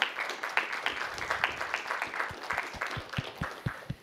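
Audience applauding with many hands clapping, thinning out to scattered single claps in the second half and stopping near the end.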